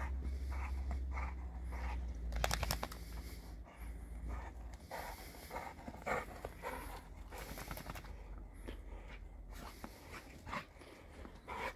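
Boerboel panting close by in short, irregular breaths.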